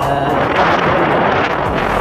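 Wind rushing over the microphone, with the noise of a vehicle moving along the road.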